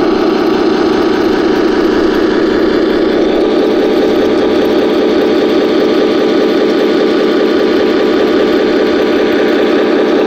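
Remote-control Panzer IV model tank driving over grass, its engine sound running steadily and loudly, swelling a little a few seconds in.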